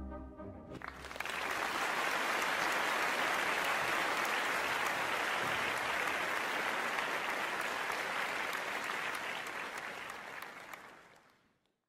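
An orchestral chord dies away and, about a second in, a concert audience breaks into steady applause, which fades out near the end.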